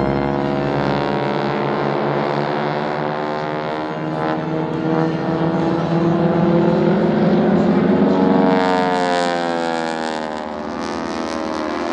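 Propeller engine of an aerobatic airplane droning steadily as it climbs and dives, its tone swirling and sweeping up and down as the aircraft moves across the sky. A faint crackling hiss joins in from about nine seconds in.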